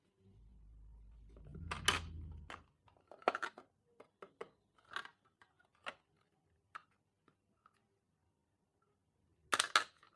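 Stationery and packaging being handled: a low rumble with a scrape about two seconds in, then a series of scattered clicks, taps and short rustles, and a brief cluster of rustling near the end.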